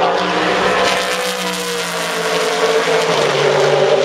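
GT1 racing car engine driving past at speed. The engine note rises and falls, stepping down in pitch about three seconds in.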